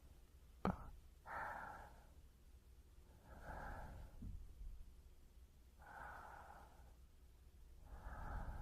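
Close-miked human breathing into a binaural microphone: four slow breaths about two seconds apart. About a second in, a single sharp mouth click, the loudest sound here, comes just before the first breath.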